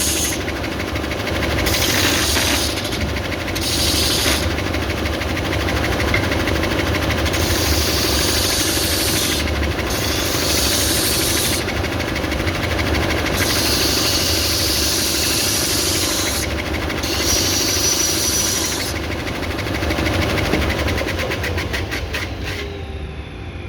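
Stationary belt sander running with a steady motor hum, wood pressed against the moving sanding belt in repeated stretches of hiss. Near the end it is switched off and the motor winds down with a falling pitch.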